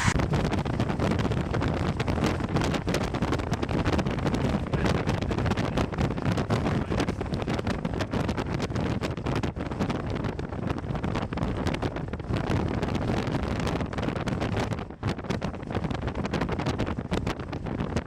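Strong, gusty wind buffeting the microphone: a dense, constantly fluctuating rush heaviest in the low end, easing briefly about fifteen seconds in.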